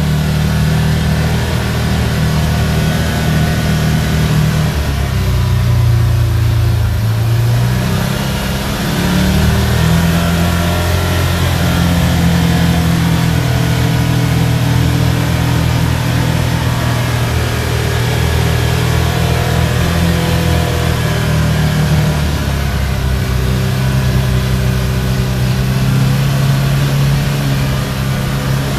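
Can-Am Maverick Trail 1000's Rotax V-twin engine and drivetrain running under way, heard from inside the enclosed full cab. The engine pitch rises and falls a few times as the throttle and speed change.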